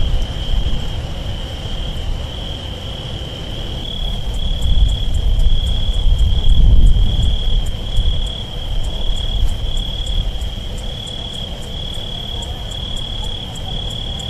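Crickets trilling, a steady high-pitched chirring that pulses at an even rate, over a deep continuous rumble.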